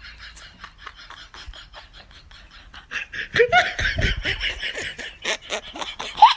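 A person laughs hard from about three seconds in, in loud bursts. Behind the laughter runs a fast string of short clicks, about eight a second.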